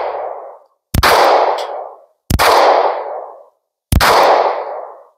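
Three shots from a SCCY CPX-2 9mm pistol, about one and a half seconds apart, each a sharp crack trailing off over about a second. The tail of a shot fired just before is dying away at the start.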